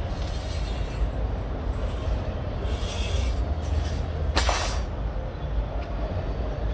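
Steady low rumble of background noise, with a brief hiss about three seconds in and a sharp click with a short hiss about four and a half seconds in.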